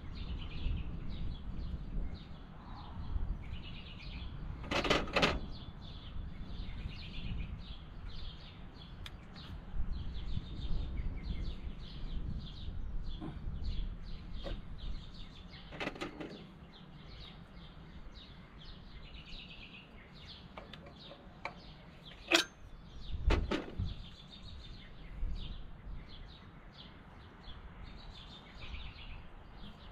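Small birds chirping steadily, with a few sharp knocks and clicks from hands working spark plug wire boots back onto the tractor engine.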